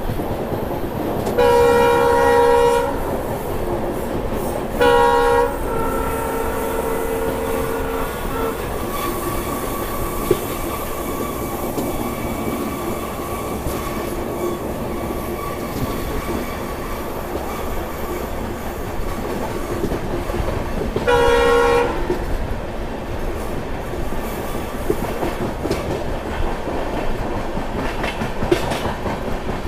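Train locomotive horn sounding three times: a blast of over a second near the start, a short one a few seconds later that trails into a fainter held tone, and another short blast about two-thirds of the way through. Under it runs the steady rumble and clickety-clack of the moving train's wheels on the rail joints.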